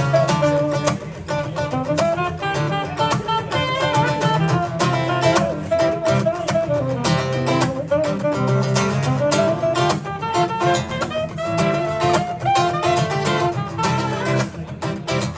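Pop band music without vocals: an instrumental break led by guitar over bass and a steady drum beat.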